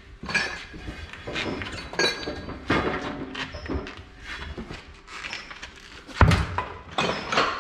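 A heavy knobby tire with its run-flat insert being worked off a steel bead-lock rim: rubber scraping and knocking against the rim and press in irregular bumps, with a heavy thump about six seconds in as the tire comes down.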